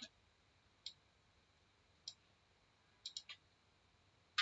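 Sparse computer mouse-button clicks, about six short sharp clicks, with a quick run of three about three seconds in.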